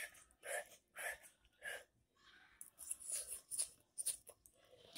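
A child chewing a mouthful of baked ziti and smacking his lips: a series of short, faint wet mouth sounds, coming closer together in the second half.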